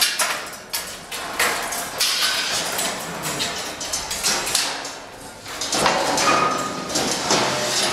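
Irregular knocking and clattering mixed with rustling noise, with a brief thin squeak about six seconds in.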